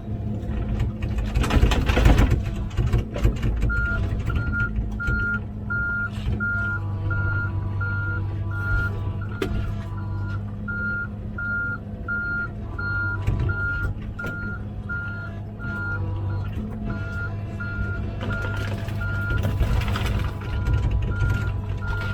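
Komatsu PC16 mini excavator's diesel engine running steadily, with its travel alarm beeping about twice a second from a few seconds in, the sign that the machine is tracking. There is a loud burst of noise about two seconds in.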